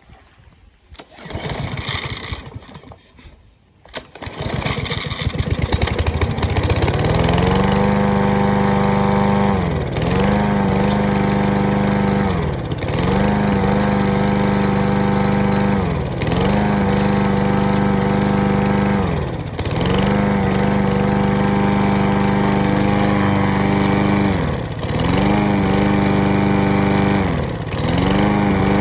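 A lawn mower's small petrol engine starts about four seconds in, revs up and runs. Its speed sags and recovers roughly every three seconds, a rhythmic surging.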